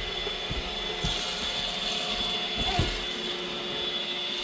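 iRobot Roomba robot vacuum running over scattered rice, a steady high whine over a lower hum, with a few short low thumps.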